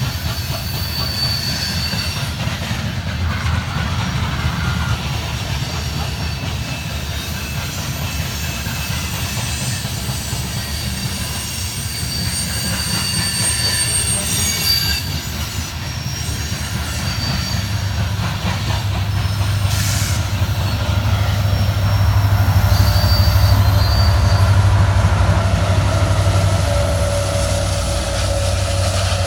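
BNSF coal train's cars rolling past, steel wheels squealing and clicking over the rail joints above a steady low rumble. From about two-thirds of the way in, a louder low drone builds.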